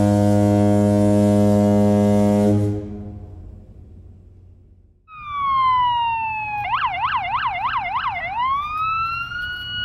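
A boat's horn sounds one long, low blast that stops about two and a half seconds in and dies away. About two seconds later an electronic siren starts with a falling wail, switches to a fast warble for about a second and a half, then rises to a held high tone.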